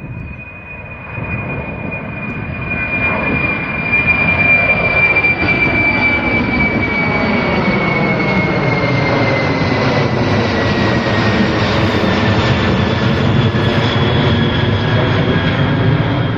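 Boeing 747-400's four jet engines at takeoff power. The sound grows louder over the first few seconds, then holds loud and steady, with a high whine that slowly falls in pitch as the jet passes.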